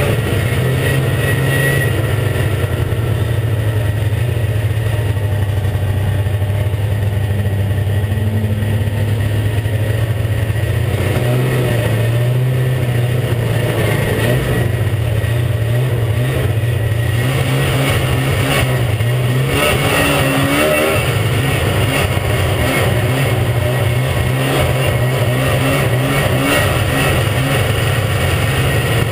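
Ski-Doo MXZ 380 snowmobile's two-stroke engine running steadily while the sled rides along a trail, its pitch shifting slightly now and then with the throttle.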